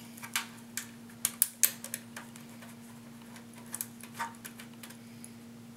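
Scattered sharp clicks and taps of screws being handled and fitted into a metal computer case, with a quick run of them about a second in and a few more near four seconds. A steady low hum runs underneath.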